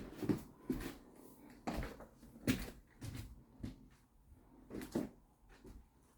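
A run of irregular knocks and clunks, about a dozen, unevenly spaced, with the loudest about two and a half seconds in.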